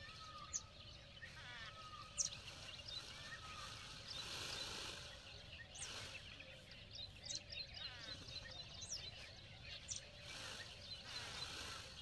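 Faint outdoor ambience of small birds chirping and calling, with a short rush of noise about four seconds in.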